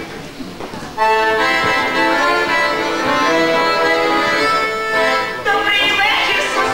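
Two accordions strike up a folk tune about a second in, playing steady chords and melody. Near the end a woman's singing voice comes in over them.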